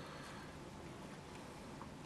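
Quiet room tone: a faint, even hiss with no distinct sounds.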